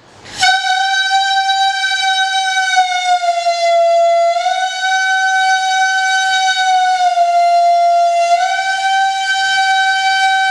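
Homemade balloon-membrane horn: a stretched rubber balloon buzzing as air is blown through it. It gives one long, steady horn-like tone that sags slightly in pitch twice before coming back up.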